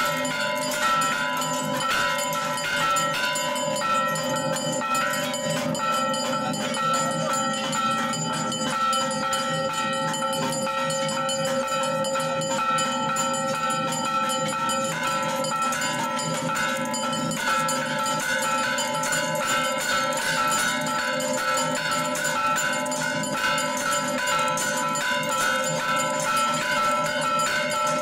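Temple bells and a hand-held bronze gong struck rapidly and without pause during aarti. The strikes run together into a steady, ringing wash of metallic tones.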